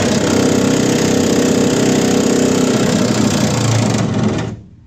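Milwaukee cordless impact wrench hammering steadily on a long extension, spinning out a rusted truck bed bolt, then stopping just before the end as the bolt comes free.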